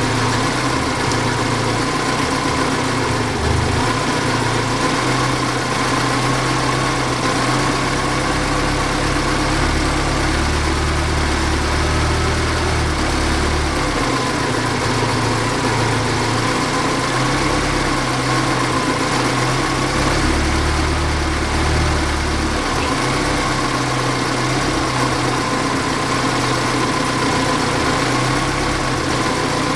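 Saab 90's four-cylinder engine idling steadily on its Stromberg carburettor while the mixture is being richened for the emissions reading. Its note rises and falls slightly a few times.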